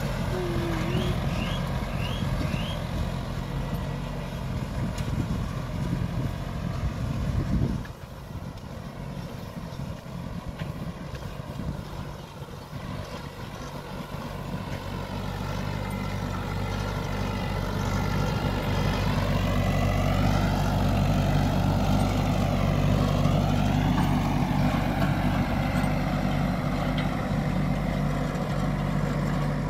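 Compact tractor's diesel engine running steadily under load as it pulls a five-tine cultivator through dry soil. The sound drops suddenly about eight seconds in and grows louder again from about halfway through.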